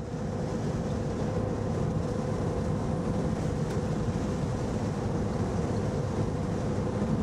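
Road noise inside a moving vehicle's cabin at highway speed: a steady rumble of engine and tyres with a constant hum.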